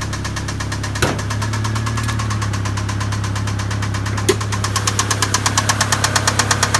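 Mazda Miata four-cylinder engine running with a fast, steady rod knock that grows louder and sharper about two-thirds of the way in. The knock comes from a failed connecting-rod bearing, one that had worn away entirely. A single sharp click sounds about a second in and another just past halfway.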